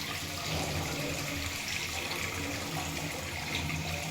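Water running steadily from a bathroom fixture, an even rushing hiss.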